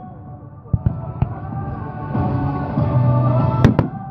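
Fireworks display: aerial shells bursting with a few sharp bangs, the loudest two close together near the end, over music that swells about halfway through.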